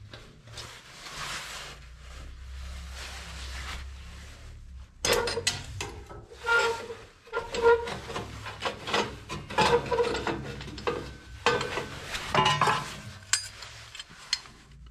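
Cloth rubbing close to the microphone, then from about five seconds in a run of sharp metal clinks and rattles with a short ring, from a steel exhaust hanger and its band clamp being handled.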